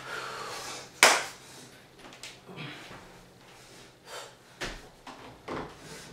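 One sharp knock about a second in, then a few softer knocks and low thuds of footsteps as a person walks across a room to a doorway pull-up bar.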